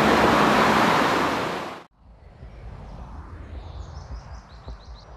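Loud steady rushing noise that cuts off abruptly about two seconds in, giving way to quieter outdoor ambience with low wind rumble. Near the end, a run of short, high, falling bird chirps.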